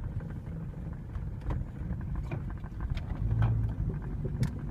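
Toyota Camry running with a low rumble and hum, with sharp clicks at irregular intervals: the noise of a bad CV axle.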